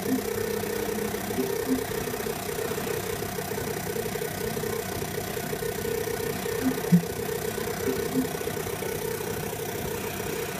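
Steady rasping buzz from computer speakers, with a few faint short blips. It is the crackle that comes through when the optical-to-AUX converter is plugged in but is not passing the Samsung TV's sound.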